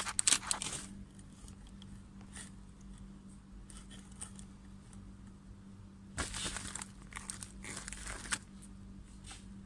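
Crinkly packaging being handled and torn open as a parcel is unwrapped: loudest in the first second, with quieter rustling and two more bursts of crinkling about six and eight seconds in. A faint steady hum runs underneath.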